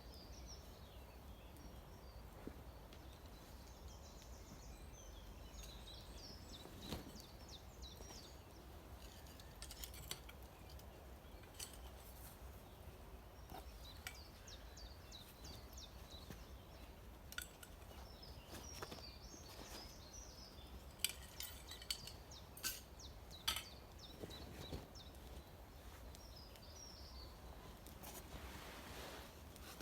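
Faint scattered birdsong over a steady low rumble, with a cluster of sharp clicks and clinks about two-thirds of the way through.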